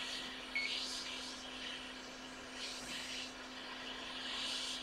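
Hot air rework station blowing a steady hiss of hot air onto a phone logic board's metal shield to melt the solder holding it, the rush swelling and easing a little, over a steady low hum. A short sharp sound stands out about half a second in.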